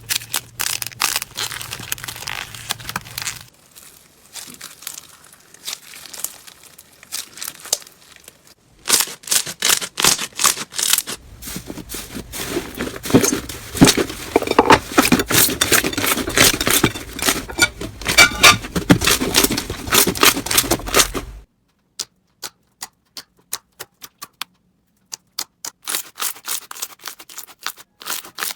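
Crunchy slime being handled, giving rapid crackling and popping clicks in several separate stretches, the densest and loudest in the middle.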